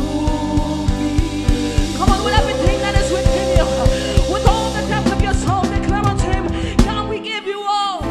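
Live gospel worship music: a band with a steady drum beat under held chords, and a voice singing over it from about two seconds in. Near the end the drums and bass drop out for a moment while the singing goes on.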